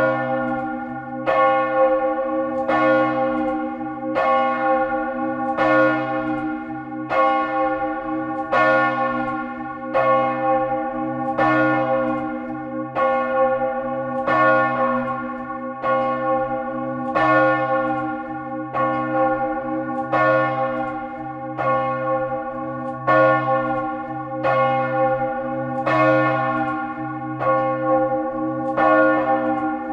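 Large church bell swinging in full peal through a high arc, its clapper striking about once a second. Each stroke rings on with many overtones, and the low hum carries over from one stroke to the next.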